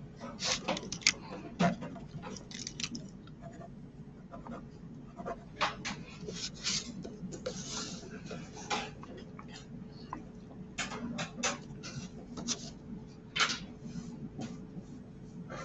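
Mechanical pencil scratching short strokes along a plastic ruler on paper, in irregular bursts, with the ruler now and then slid and set down in a new place.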